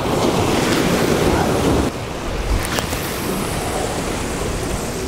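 Ocean surf breaking and washing against jetty rocks, with wind buffeting the microphone. The wash is loudest for the first two seconds, then eases, and a single faint click comes a little past halfway.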